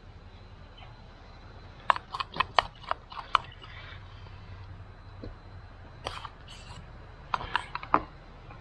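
A small spoon clicking and scraping against a small plastic cup as minced garlic is scooped out and tapped off, in three short runs of quick sharp clicks.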